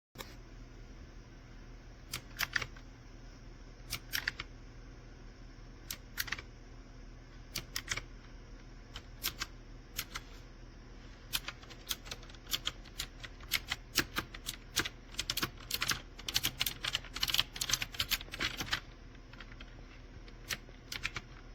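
Keys being typed on a typewriter-style mechanical keyboard. A few slow, separate keystrokes come first, then a quicker run of typing from about halfway that stops a couple of seconds before the end, followed by two last keystrokes.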